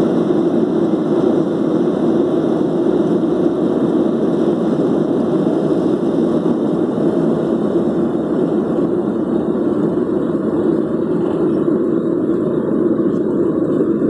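Boeing 737-800's CFM56-7B jet engines at takeoff thrust, heard inside the cabin as a loud, steady noise through the takeoff roll and lift-off. The higher part of the noise thins out a little after about eight seconds, as the aircraft leaves the runway.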